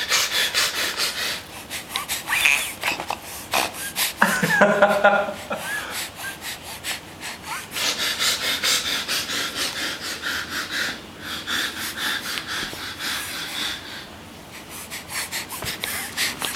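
Toddler snorting through his nose over and over, quick noisy snorts about three or four a second, with a couple of short vocal squeals a few seconds in.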